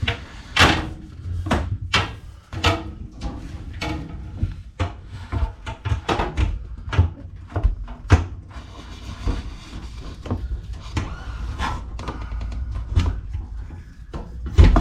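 Irregular knocks, clunks and rubbing as a copper refrigerant line set is pulled and fed through the hole into the crawl space.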